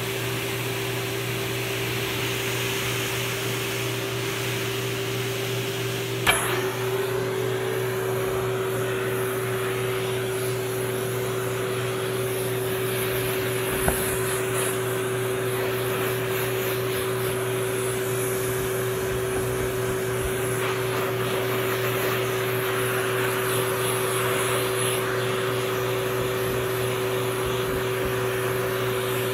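Handheld pet blow dryer running with a steady whirring hum. A click comes about six seconds in, after which its pitch rises slightly.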